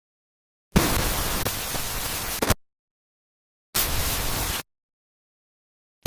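Hissing static noise that cuts in and out abruptly. One burst of nearly two seconds starts under a second in, a burst of about a second comes near the four-second mark, and another short burst begins at the very end.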